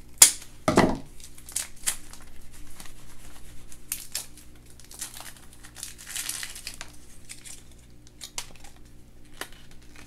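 Packaging of a surprise egg being handled and torn open: scattered crinkling and tearing rustles with small clicks, busiest around the middle. A sharp click and a thump come just after the start.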